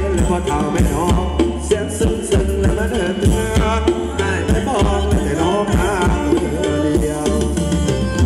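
Live Thai ramwong band music: a steady hand-drum beat under a wavering melody line.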